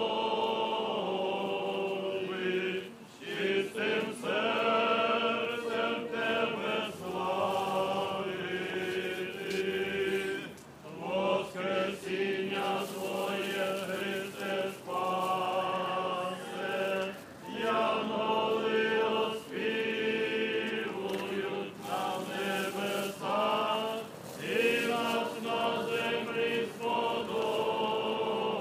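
Eastern Orthodox liturgical chant sung by a group of voices, in phrases several seconds long with short pauses between them.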